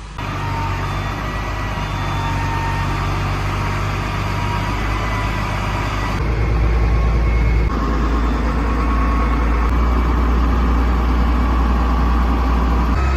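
Combine harvester's diesel engine running steadily. Its low rumble grows heavier about six seconds in.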